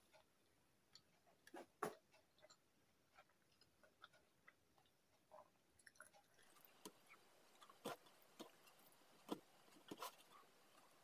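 Faint chewing of a mouthful of rice and potato curry: scattered soft mouth clicks and lip smacks at irregular intervals over low room tone.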